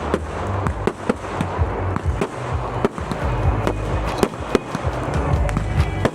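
Fireworks display: a rapid, irregular string of bangs and crackles, several a second, over background music with a heavy bass.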